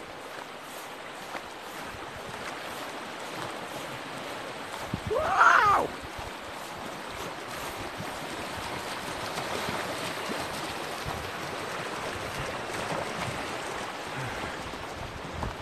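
Steady rushing of river water flowing past. About five seconds in comes one brief, loud pitched sound that bends up and down.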